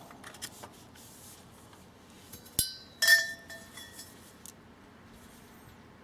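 Hard utensils or dishes clinking: a sharp tap a little past two and a half seconds in, then a clink that rings briefly, followed by a few softer taps.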